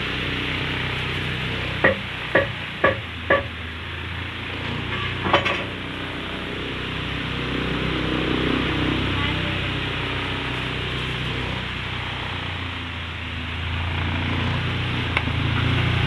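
12-inch table fan running: a steady rush of air over a low electric-motor hum. A few sharp clicks come about two to three seconds in, and one more around five seconds.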